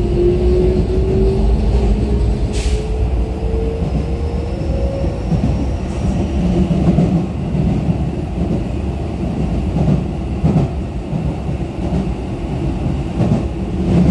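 Cabin running noise of a Keikyu New 1000 series electric train: the traction motors' whine rises slowly in pitch over the first few seconds as the train gathers speed, then fades under a steady rumble of wheels on track, with a few knocks from rail joints.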